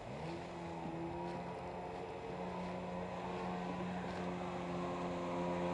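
Jet ski engine running over the water; its pitch rises briefly at the start, then holds steady.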